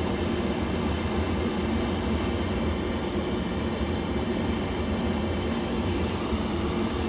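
York gas furnace running with a steady hum and rush during an ignition attempt in which the gas flows to the burners but does not light: an ignition failure.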